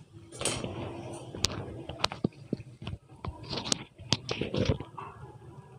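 Hot oil sizzling and crackling around a gram-flour-coated potato naan deep-frying in a pan, with irregular sharp pops. The first side is frying until golden.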